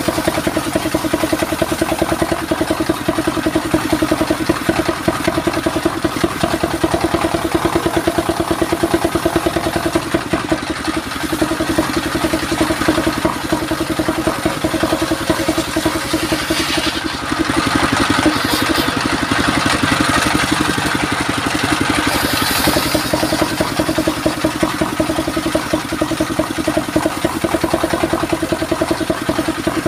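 Engine-driven table circular saw running steadily with a rhythmic engine pulse while the blade rips mahogany boards. The cutting hiss grows louder for several seconds a little past the middle.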